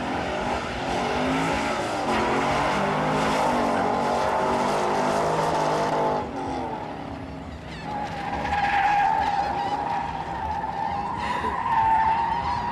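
Drift cars sliding at speed: for the first half an engine revs hard, its pitch wavering up and down under tyre noise. After a sudden change about six seconds in, tyres squeal in a long, steady, high note that rises slightly near the end.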